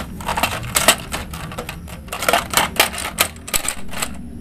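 Hard plastic toy vehicles clattering and clicking against each other as they are handled and set down: a quick, irregular run of sharp clacks that thins out near the end.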